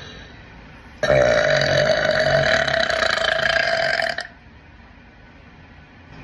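A woman's single long burp, about three seconds, starting about a second in and held at a steady pitch.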